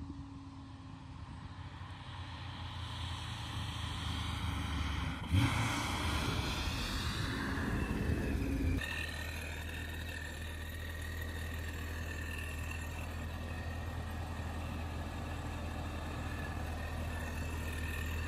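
2017 Camaro SS's V8 fitted with a ProCharger D1X supercharger, driving. Its sound builds, surges suddenly about five seconds in with a rising high whine, then changes abruptly near nine seconds to a steady run with a steady high whine over the engine drone.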